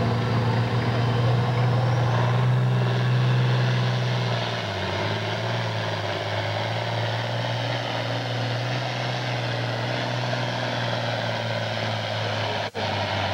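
International 1066 tractor's diesel engine running hard as it pulls the sled. Its pitch drops about four seconds in and holds lower as the engine lugs down under the load. The sound cuts out for an instant near the end.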